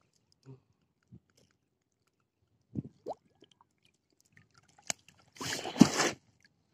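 A large fish tangled in a wet nylon gill net being hauled over the side into a small boat: a few faint knocks and wet handling sounds, then a loud, brief burst of wet rustling with a thud about five and a half seconds in as the net and fish come aboard.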